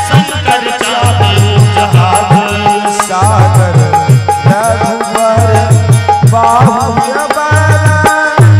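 Devotional kirtan music: a harmonium plays the melody over a steady dholak drum beat, with small hand cymbals (manjira) clinking along.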